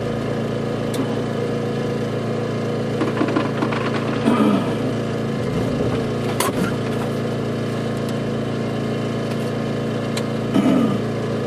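Steady engine-like hum of a running motor. Over it come a few small clicks and rubs of a rubber pump impeller being worked into its housing by hand, with one sharp click about six and a half seconds in.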